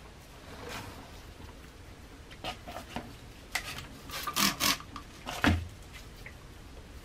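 Rubber-gloved hands scooping and rubbing wet sand-and-cement mix in a plastic bowl: a run of short scraping sounds in the middle, the loudest about halfway through, with a dull knock just after.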